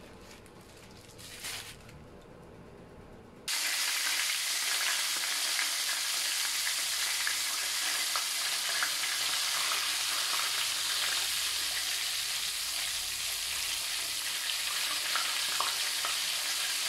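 A flour-coated whole fish frying in hot oil in a pan: a loud, steady sizzle with small crackles. It starts suddenly about three and a half seconds in, after a quieter stretch.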